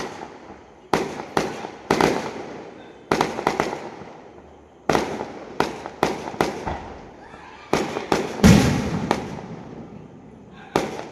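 Fireworks exploding: a rapid, irregular string of sharp bangs, each with a short fading tail. The deepest and loudest bang comes about eight and a half seconds in.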